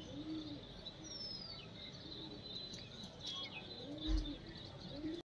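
Faint bird calls: soft low coos repeating every second or so, with a few thin high chirps. A soft low bump comes about four seconds in.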